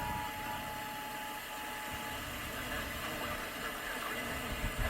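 Weather radio receiver hiss with faint steady alert tones. One tone cuts off just after the start and another about two seconds in, leaving only static. These are the end of a NOAA Weather Radio warning-alarm test signal.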